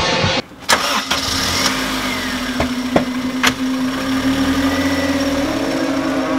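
A car engine starting, with a few sharp clicks, then running at a steady idling hum whose pitch steps up slightly near the end.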